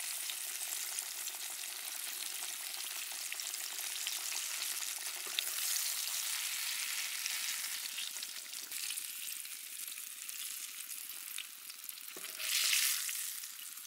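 Hot oil sizzling and crackling in a steel wok around fish steaks deep-frying, with the fish being lifted out with a metal ladle. The sizzle eases off in the second half, with a brief louder surge near the end.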